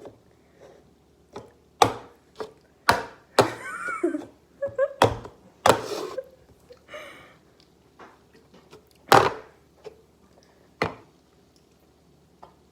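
A series of sharp, irregular knocks and thuds, about eight in all, with a few short muffled vocal noises between them around the middle.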